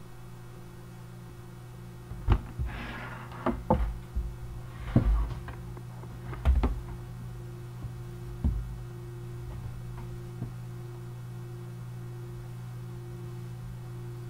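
A run of sharp knocks and thumps with two brief rustles in the first two-thirds, then only a steady low hum.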